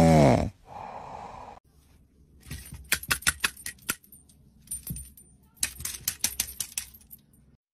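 The loud end of a sleeping cat's snore cuts off half a second in. After a short lull come bursts of rapid clicking and clattering from a green plastic toy as a cat paws at it.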